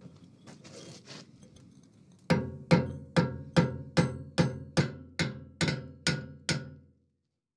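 Hand hammer peening the red-hot tenon of a steel handle down over a steel plate held in a vise, riveting the plate on: about eleven even blows, a little over two a second, starting about two seconds in, each with a short metallic ring.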